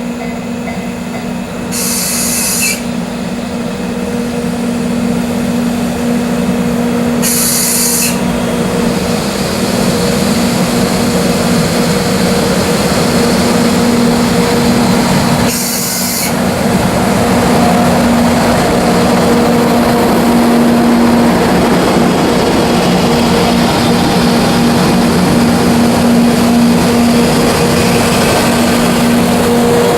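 Double-headed EF64 electric freight locomotives running with a steady electric hum over a wide rumble of noise that grows louder. Three short, high hisses break in about two, seven and sixteen seconds in.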